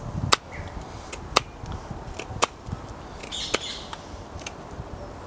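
Knife blade pushed down along the end of a wooden peg braced on a log chopping block, carving it to a point: a sharp crack about once a second as each sliver of wood shears off.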